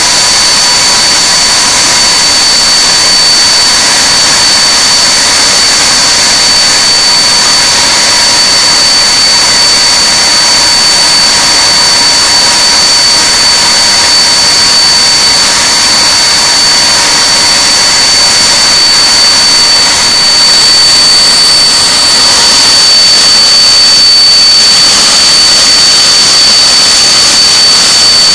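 Handley Page Victor K2's Rolls-Royce Conway turbofan engines running on the ground: a loud, steady jet rush with a high whine held throughout. A lower whine fades out about three-quarters of the way through as the noise grows slightly louder.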